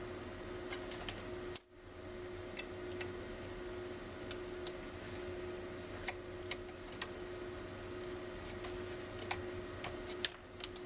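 Scattered small clicks and ticks of a small screwdriver and screws as the replacement laptop screen's mounting screws are put in, over a steady hum. The sound drops out briefly near two seconds in.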